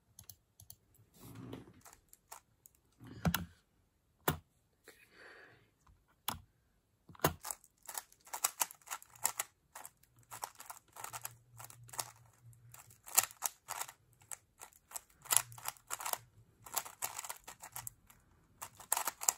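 Plastic twisty puzzle, a Dayan TengYun V2 M magnetic 3x3 speedcube, clicking fast and irregularly as its layers are turned during a timed solve. The turning is dense from about seven seconds in, after a few scattered clicks.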